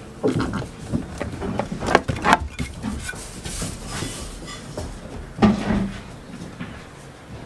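Goats moving about on straw bedding: hooves scuffling and knocking, with a few sharp knocks about two seconds in and another about five and a half seconds in.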